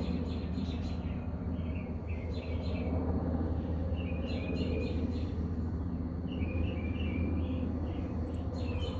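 Birds chirping in short repeated notes over a steady low outdoor hum.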